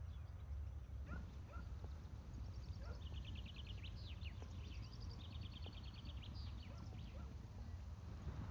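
Faint outdoor rural ambience: a steady low rumble, with short high chirps and a few rapid high trills from about three seconds in.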